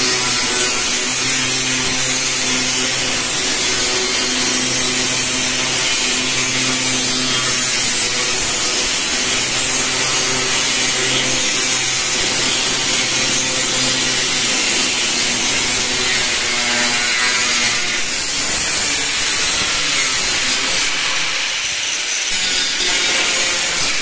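Two handheld angle grinders with abrasive cut-off discs cutting through steel decking sheet: loud, continuous grinding of disc on metal over the steady hum of the grinder motors. The motor hum fades after about 17 seconds while the grinding goes on.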